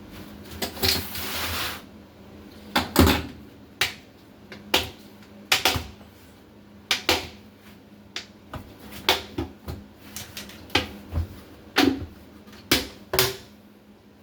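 A series of sharp clicks and knocks, roughly one a second and uneven, from tools and a container being handled, with a short rustle about a second in.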